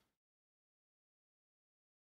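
Silence: the sound track is digitally silent.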